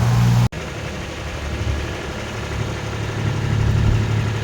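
A motor vehicle's engine running with a steady hum. About half a second in, the sound cuts abruptly to a quieter, rougher engine rumble with background noise.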